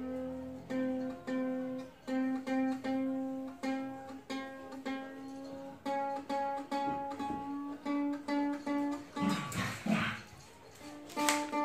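A single ukulele string plucked over and over, one to two plucks a second, while the string is tuned: the note shifts slightly in pitch. About nine seconds in there is a brief rustle, and near the end the note sounds a little higher.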